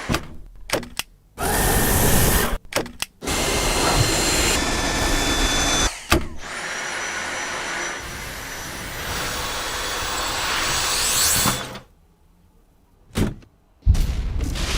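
Dyson vacuum cleaner running in a string of short cut-together stretches. Its motor noise starts and stops abruptly several times, with a thin steady high whine over the suction hiss.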